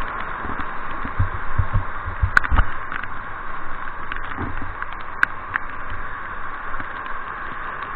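Steady rush of river whitewater rapids under a raft's bow. Low thumps come a second or two in and again around the middle, and there are two sharp clicks.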